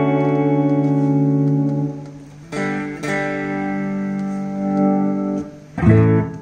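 Guitar chords sounding through a 1984 Toa EMX-10 echo mixer. A held chord fades out, new chords are struck about two and a half seconds in, and another short chord comes near the end.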